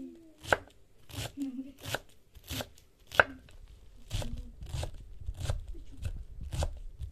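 Kitchen knife chopping a pile of fresh leafy herbs on a wooden cutting board, a steady run of strokes about one every two-thirds of a second. Two strokes, about half a second in and about three seconds in, are sharper and louder than the rest.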